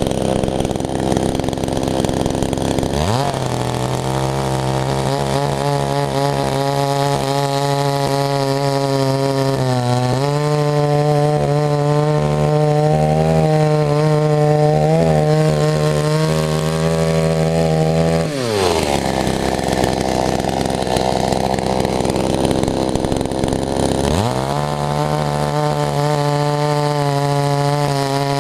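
Chainsaw's two-stroke engine at idle, revving up about three seconds in and held at high speed for about fifteen seconds with its pitch wavering, then dropping back to idle; it revs up again near the end, with a brief dip.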